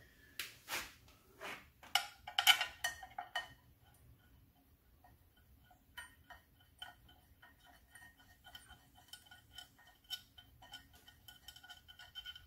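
Steel clutch pressure-plate bolts with lock washers being started by hand: a few sharp metal clinks and knocks in the first three seconds, then, from about six seconds in, a run of light metallic ticks with a faint ring.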